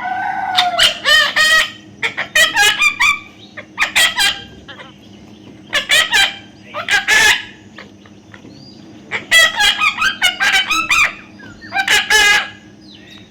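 Baby parrot calling in repeated bursts of harsh, quick squawks, grouped into clusters with short pauses between them.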